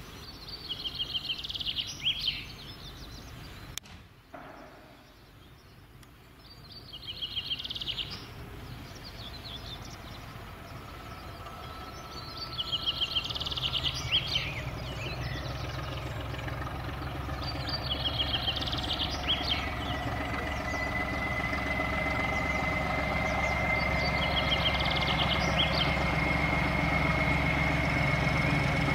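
Class 14 diesel-hydraulic locomotive D9526 approaching slowly: its engine hum builds from about halfway and grows louder, and a high whine joins about two-thirds through and rises slightly. A songbird repeats a short trilled phrase about every five or six seconds.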